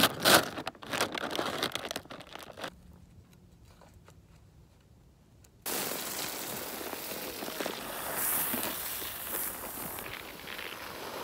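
A sack of shelled corn being handled at its top, crinkling and clicking, then, after a quiet few seconds, the corn kernels pouring from the sack onto the ground in a steady rush.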